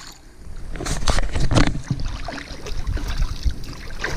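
Shallow lake water sloshing and splashing around a person's hands and feet at the shoreline, irregular and uneven, quieter for the first second.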